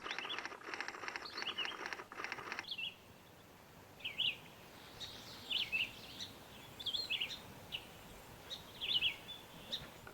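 Wild birds calling: a fast, dense chatter for about the first two and a half seconds, then a scattering of short, high chirps over a faint steady background hiss.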